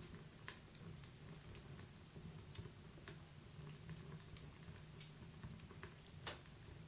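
Wood fire burning inside a stove: irregular sharp crackles and pops over a low steady rumble, the loudest pop near the end.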